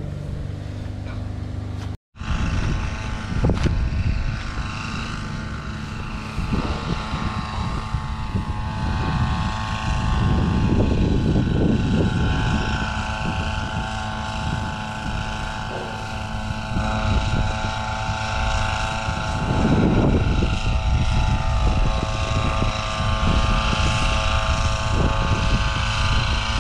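Chainsaw engine running steadily at high speed, its sound dropping out for a moment about two seconds in, with louder, rougher stretches about ten and twenty seconds in.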